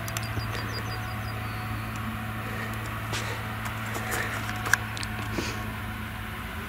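Claas Jaguar self-propelled forage harvester running steadily under load while chopping whole-crop cereal, a constant low engine hum with a few sharp ticks.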